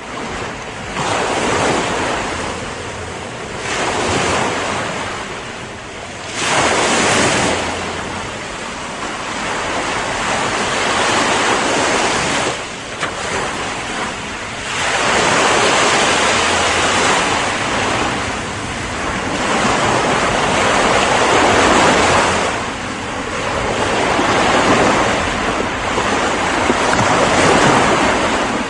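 Ocean surf: waves breaking and washing up the shore over and over, the hiss of water swelling and easing every few seconds.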